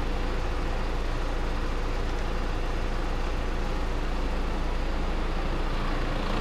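Tractor engine running with a steady, unchanging drone.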